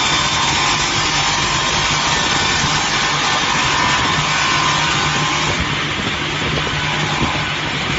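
Multi-blade rip saw machine running steadily with a constant motor hum and the dense hiss of its blades ripping square timber into strips; the high hiss eases slightly about five and a half seconds in.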